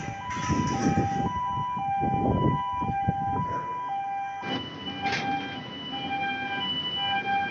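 Two-tone warning alarm of a dam gantry crane, alternating between a higher and a lower tone about every half second. Rough low rumbling sits under it at first, giving way to a steady low hum about four and a half seconds in.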